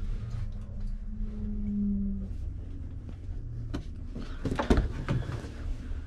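Knocks and bumps of someone moving about inside a small fibreglass boat hull, with a low rumble of handheld camera handling. A short low hum sounds about a second in, and the loudest knocks come near the middle and a little later.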